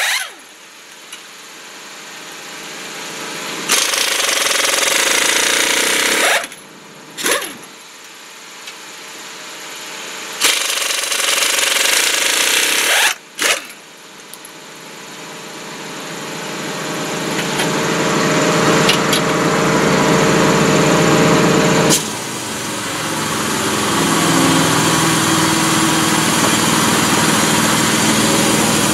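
Pneumatic impact wrench hammering lug nuts off a heavy truck's front wheel in several bursts of a few seconds each, the last and longest lasting about eight seconds. From about two-thirds of the way through, a small engine runs steadily.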